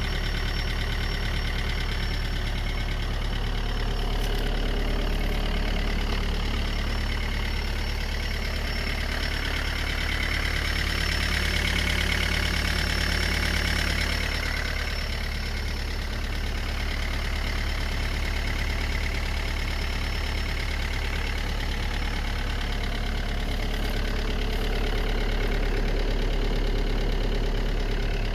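Engine idling steadily after a cold start at −10 °C, with the extraneous noises that the owner is worried about.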